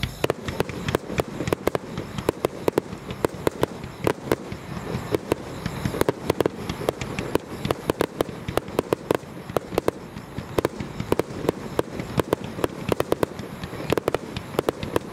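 Star mine fireworks display: small shells launching and bursting in rapid succession, sharp bangs several times a second with no break.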